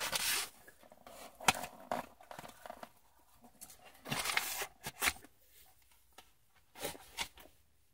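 A cardboard sandwich box crinkling and scraping in short, irregular bursts as a sandwich is lifted out, with a crunchy bite into crispy fried chicken about four seconds in.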